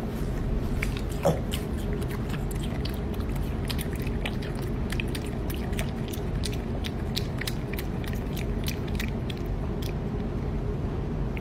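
Piglet chewing food with open-mouthed wet smacking, many quick clicks of the mouth through the whole stretch. One brief louder squeak or grunt comes about a second in.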